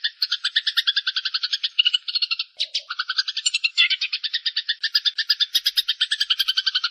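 Eurasian tree sparrows fighting: a continuous, rapid rattling chatter of about a dozen notes a second, broken briefly about two and a half seconds in.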